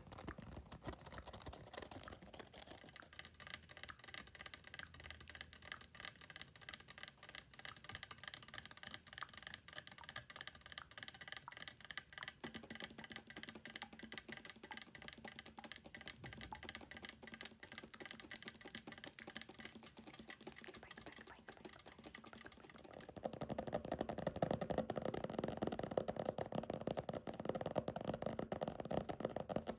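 Fingernails tapping very fast, a dense stream of rapid clicks layered with mouth sounds. A little over two-thirds of the way through, the tapping becomes louder and fuller.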